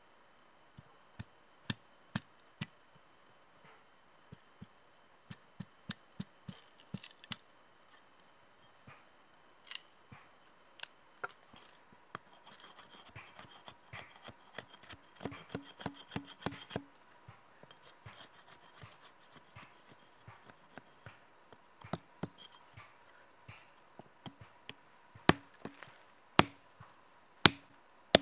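Small hatchet blade striking and splitting thin wooden sticks: irregular sharp chops and taps, with a quick run of light strokes about halfway through and the heaviest blows near the end.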